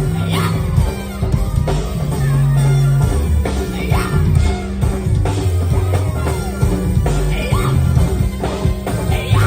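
Music: a song with a singing voice over a steady bass line and a beat.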